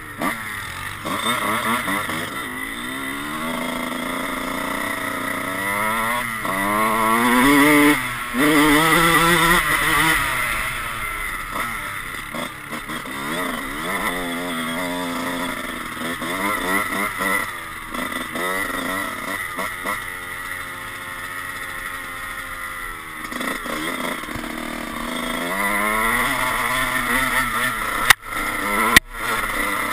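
Dirt bike engine revving and changing pitch as it is ridden, rising through the gears with the throttle opened and closed. Two sharp knocks near the end.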